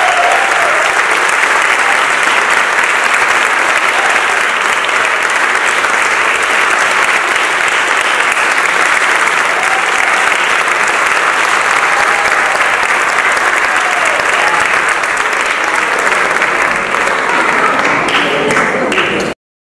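Audience applauding steadily for the dancers' bow, a dense even clapping with a few voices calling out in the crowd; it cuts off abruptly near the end.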